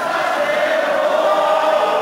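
A group of men's voices singing together in unison, holding a long note.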